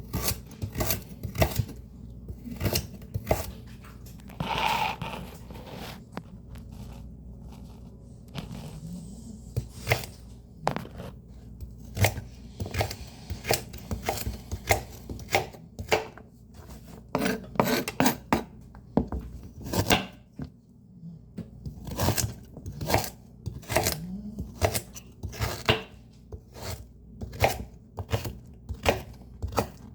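Leafy greens being chopped: a long, irregular run of sharp chops, with short pauses between bursts. A fan hums steadily underneath.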